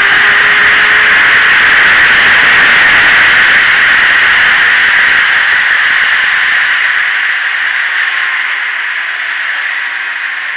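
Loud wind rush over a motorcycle-mounted camera's microphone at track speed, with the sport bike's engine faintly audible underneath as a slowly rising tone. The rush eases off over the second half.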